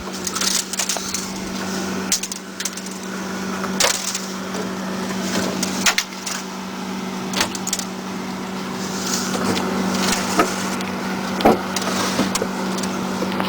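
Shop towel wiping and rubbing the inside walls of a freezer: continuous scuffing with scattered knocks and clicks, over a steady low hum.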